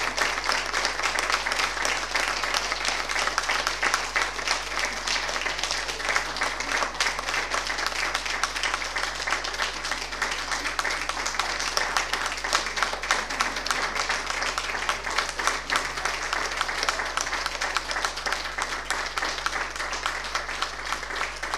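Audience applauding, a long round of many hands clapping that eases off slightly near the end.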